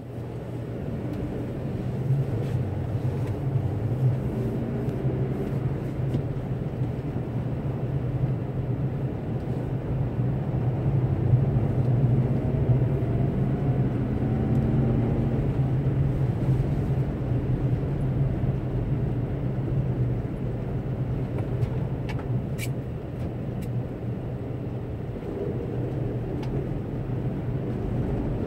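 A car's engine and tyre noise heard from inside the cabin while driving on snow-covered streets: a steady low hum, with the engine note rising and falling a little in the middle. A few faint clicks come near the end.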